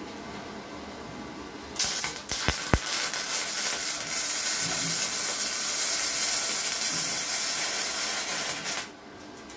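Flux-core arc welding with self-shielded E71T-GS wire from a Redbo MIG-120 welder on galvanized square tubing. The arc strikes about two seconds in and catches with a few sharp crackles. It then runs as a steady hiss for about seven seconds and stops shortly before the end.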